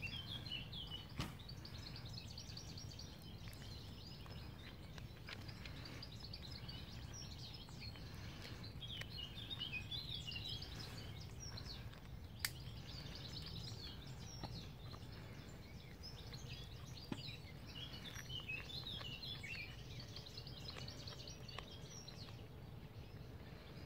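Faint birdsong: short chirps and trills come and go over a low steady rumble. A few isolated sharp clicks stand out, the clearest about a second in and about halfway through.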